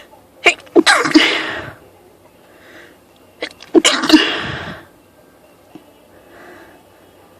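A woman sneezing twice, about three seconds apart, each sneeze a loud burst that opens with a sharp catch, with faint breaths between. It is part of a sneezing fit that a spritz of perfume set off.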